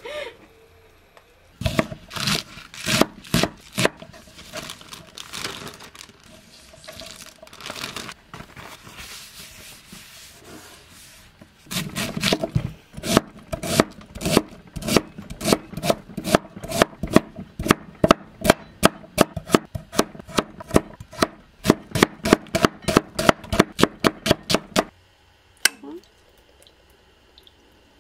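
Cleaver chopping onion on a wooden end-grain cutting board. Slower, uneven knocks at first, then a quick steady run of about three to four strokes a second that stops near the end.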